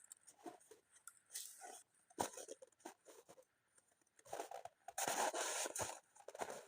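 Wood and twigs being handled: scattered cracks, rustles and scrapes, with a longer scraping stretch about four to six seconds in.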